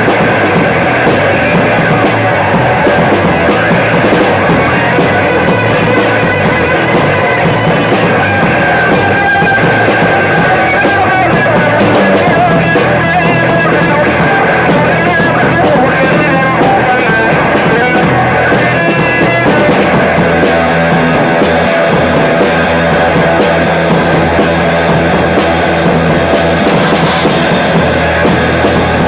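Live rock band playing loudly, a dense, steady wall of guitar-driven rock with no break.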